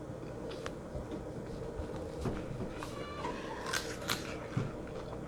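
Close-miked eating sounds: scattered sharp clicks and smacks of chewing, with a brief squeak about three seconds in.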